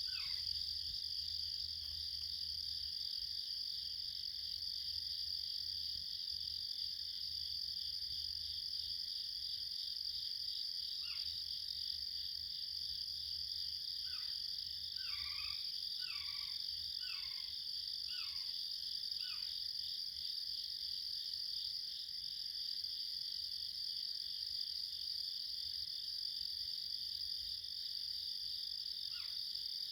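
Unidentified calling animals: a steady, high-pitched pulsing trill that never stops, with a run of about six short falling calls around the middle and single ones a little before and near the end.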